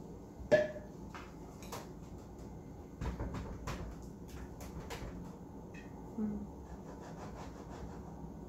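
Light handling noises as hands touch a painted wooden counter and the mat on its top: a sharp click about half a second in, then a few faint taps and rubs. A short murmured 'hm' from a man's voice comes about six seconds in.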